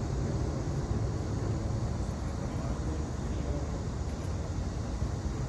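Mobile crane's engine running steadily, a low, even rumble.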